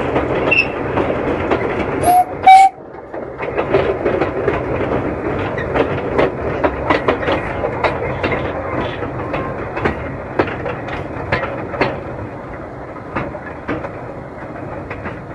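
Hunslet narrow gauge steam locomotive's train running, wheels clicking over the rail joints, with two short loud whistle toots about two seconds in. The running grows quieter near the end.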